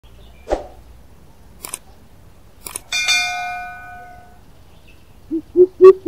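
A few sharp clicks, then a metallic clang that rings for about a second. Near the end a greater coucal starts its deep hooting call, three low 'poop' notes about four a second, each louder than the last.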